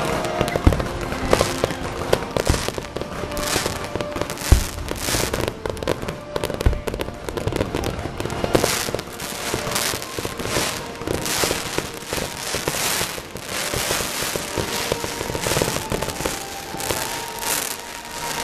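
Aerial fireworks bursting overhead, one after another, with a few deep booms in the first seven seconds. After that comes a steady run of crackling bursts about two a second.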